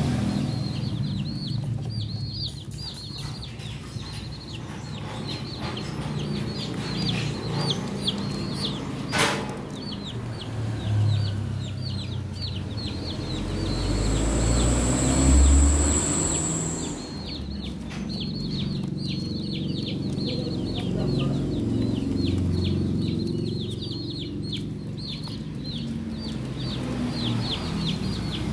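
A flock of young chicks peeping nonstop: many short, high cheeps, each sliding downward, over a low rumble. A sharp click comes about nine seconds in. Around the middle, a steady high whine and a stronger low rumble last about three seconds and are the loudest part.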